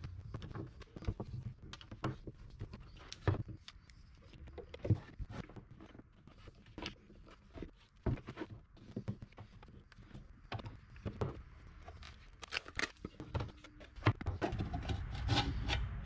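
Scattered small clicks and taps of a folding Torx key and screws being handled while the cover of an aluminium engine computer case is taken off.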